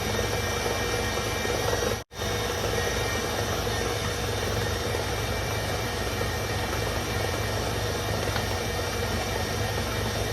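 Electric mixer running steadily, beating eggs and sugar for sponge cake batter. The sound cuts out for an instant about two seconds in.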